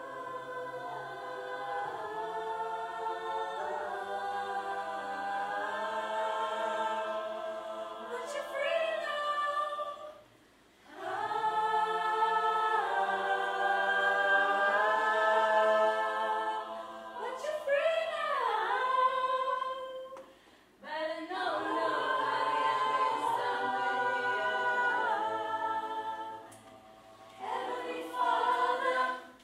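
A small group of voices singing a cappella in held chords, in long phrases broken by short pauses, with a few sliding notes and a brief closing phrase near the end.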